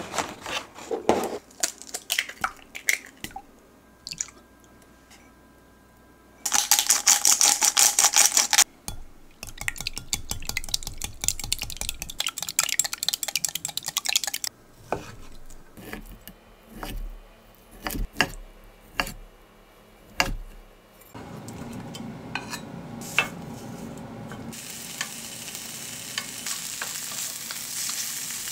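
Eggs whisked briskly with a wire whisk in a glass Pyrex measuring jug: fast, even rattling strokes for several seconds, loudest at first. After a few scattered knocks of utensils, ham sizzles frying in a square tamagoyaki pan on a gas stove, the sizzle growing louder near the end.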